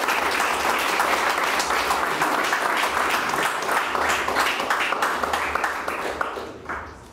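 A small audience applauding, steady hand-clapping that dies away near the end.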